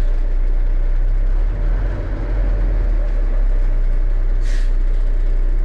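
Diesel engine of a 1974 Kenworth log truck running steadily, with a short hiss about four and a half seconds in.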